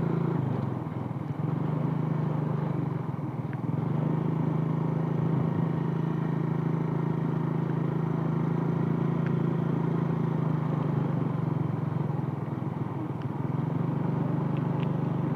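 Small motorcycle engine running at a steady cruise on a rutted dirt track, easing off briefly twice, with a rumble of road and wind noise.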